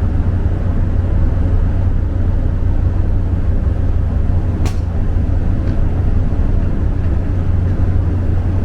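Steady low drone of the Asakaze 21 car ferry's engines, heard on board while under way, with one sharp click about four and a half seconds in.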